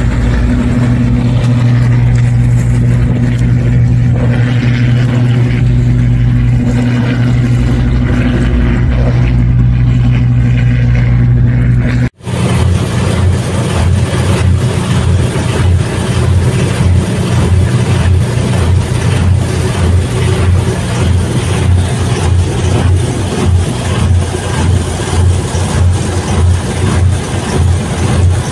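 Boat engine running steadily and loud, with wind and water noise. The sound drops out for an instant about twelve seconds in; after that the engine comes through as a low throb pulsing a few times a second.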